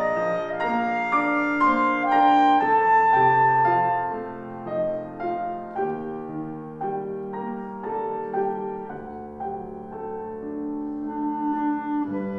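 Clarinet and grand piano playing a classical piece together, the clarinet's melody over the piano accompaniment. The first few seconds are loud, and the music turns softer after about four seconds.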